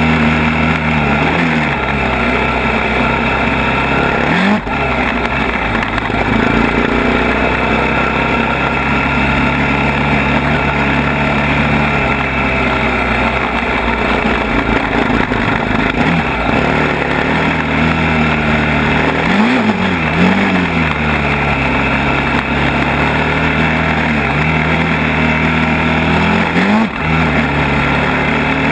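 ATV engine running steadily under load, with the throttle blipped a few times: quick rises and falls in pitch about four seconds in, around twenty seconds, and near the end.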